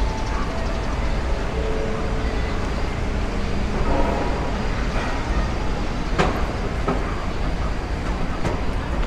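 Outdoor ambience: a steady low rumble, with faint distant voices and two sharp clicks about six and eight and a half seconds in.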